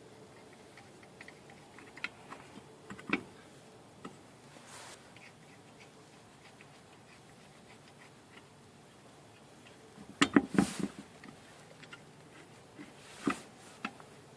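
Scattered light clicks and knocks of metal hand tools and wheel parts being handled while a spare wheel is fitted, with a short cluster of louder clanks about ten seconds in and another knock near the end.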